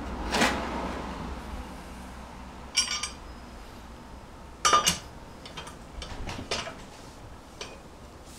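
Metal lug nuts and tools clinking while the nuts are fitted onto a car's wheel studs: a handful of separate ringing clinks, the loudest a pair about five seconds in, followed by a few lighter clicks.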